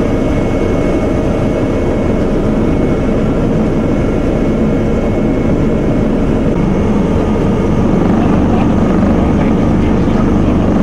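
Steady loud drone of a helicopter's engines and rotor heard inside the cabin, with a faint steady high whine above it. It gets slightly louder about eight seconds in.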